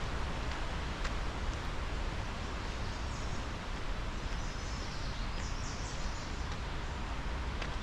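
Outdoor park ambience: a steady rushing noise, strongest in the low end, with a few faint high bird chirps from about three seconds in.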